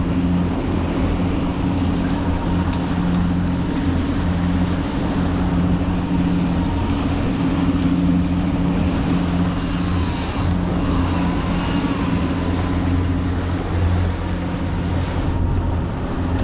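Boat engine running steadily at trolling speed, a low even hum over rushing noise. From about ten seconds in, a thin high whine joins for several seconds, briefly broken near the start.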